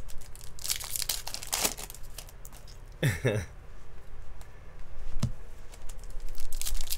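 Foil wrappers of baseball card packs crinkling and tearing as the packs are ripped open, with the cards slid and handled. The crinkling comes in two spells, about a second in and again near the end, with a single tap about five seconds in.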